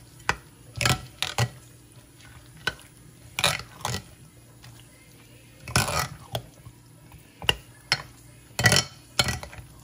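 A metal spoon stirring thick yogurt raita in a glass bowl: irregular clinks and scrapes of the spoon against the glass, with soft wet squelches of the yogurt, about a dozen strokes.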